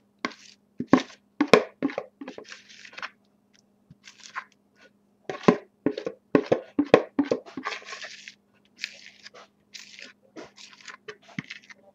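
A spoon scraping a thick, cheesy hash brown and sour cream mixture out of a bowl into a glass baking dish: irregular clicks, scrapes and wet squelches. A steady low hum runs underneath.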